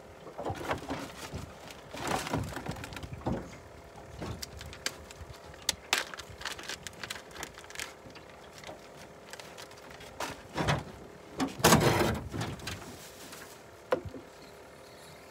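Scattered knocks, clicks and rustles of fishing gear being handled in a small boat, with a louder rustling burst near the end.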